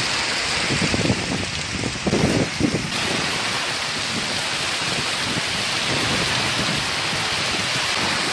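Heavy rain pouring down steadily, a dense even hiss of downpour, which cuts off suddenly at the end.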